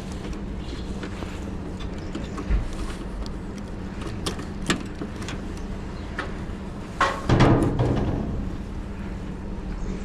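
Scattered clicks and knocks of air conditioner parts being handled and fitted back together, over a steady low hum. A louder rattle lasting about a second comes about seven seconds in.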